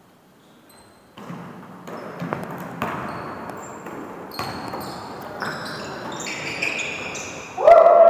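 Basketball play on a wooden gym floor: a basketball bouncing and sneakers squeaking, after about a second of near silence. Near the end a loud, held, pitched sound cuts in and is the loudest thing.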